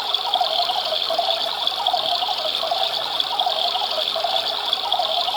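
Battery-operated toy washing machine running, its small motor turning the drum with water swishing around inside; a steady, even churning.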